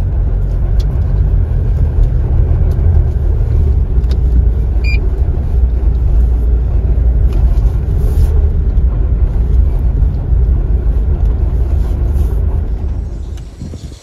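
Car driving, heard from inside the cabin: a steady low engine and road rumble, which fades out near the end.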